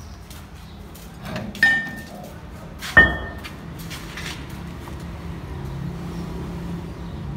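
Two sharp metallic clanks, each ringing briefly, as a steel pinion gear is set down against a large ring gear; the second, about three seconds in, is the louder. A low steady hum continues under them.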